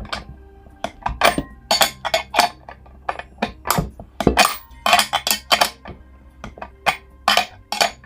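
Metal parts of an industrial caster (wheel, bracket, plate and screws) clinking and knocking together as the caster is assembled by hand. The sharp clinks come in an irregular run, about two a second.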